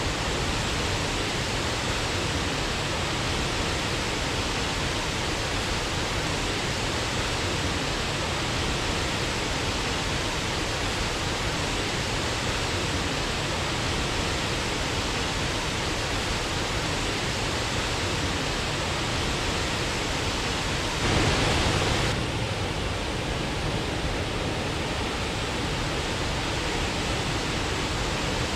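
Waterfall rushing in a steady, even roar of falling water, briefly louder for about a second around three quarters of the way through.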